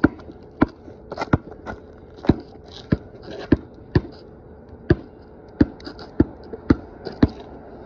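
A basketball being dribbled on a concrete driveway, bouncing steadily about once every half second to a second.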